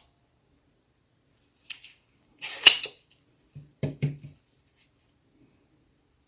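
Spring-loaded solder sucker (desoldering pump) at work: a faint click, then one loud sharp snap about two and a half seconds in as the plunger fires, followed by a few quicker knocks and clicks from handling it.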